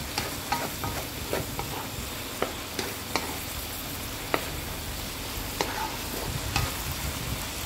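Minced pork and sliced pork sausage stir-frying dry over high heat in a wok: a steady sizzle, with irregular clicks and scrapes of a wooden spatula against the pan about once or twice a second.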